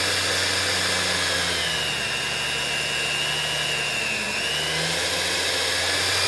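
35-year-old electric meat slicer running, its spinning blade cutting thin slices from a cooked eye of round roast: a steady motor hum, with a higher whine about two to four seconds in.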